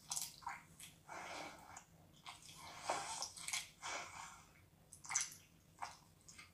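Wet slurping, sucking and chewing of a mouth working on raw octopus tentacles, with irregular lip smacks.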